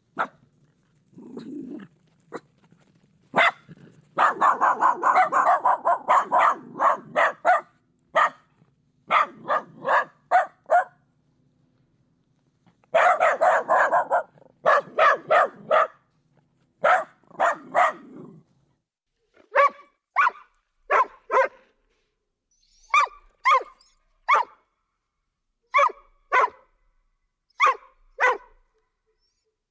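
Dog barking repeatedly: quick runs of barks in the first half, then slower barks, often in pairs, about a second apart.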